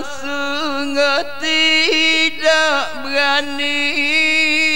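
A solo voice sings a long, ornamented melismatic line of a Kelantanese dikir song, holding notes with vibrato and sliding between pitches, with two brief breaks. No accompaniment is heard.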